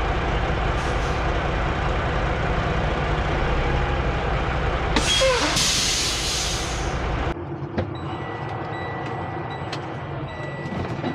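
Semi-truck diesel engine running at low speed while backing a trailer, with a loud air-brake hiss about five seconds in. Just after seven seconds the engine sound drops away suddenly, leaving a faint steady high tone and a few clicks.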